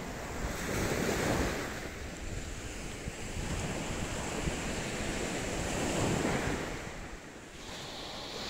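Small waves breaking and washing up a sandy beach, swelling twice, about a second in and again about six seconds in.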